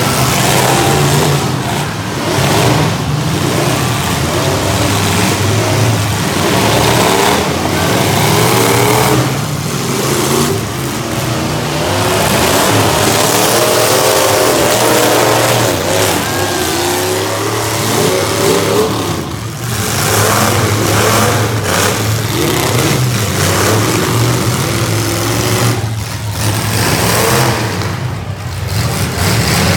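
Several V8 demolition derby cars revving hard at once, their engines rising and falling in pitch over one another.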